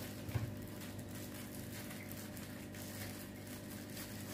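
A small plastic aquarium pump is set down on a wooden tabletop with a soft thump about half a second in, followed by faint small clicks and rustles of plastic fittings being handled, over a steady low hum.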